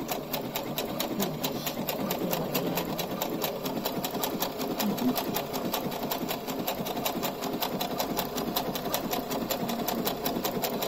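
Sewing machine stitching steadily at speed, sewing a decorative stitch pattern, with a regular rhythm of needle clicks over the motor's running hum.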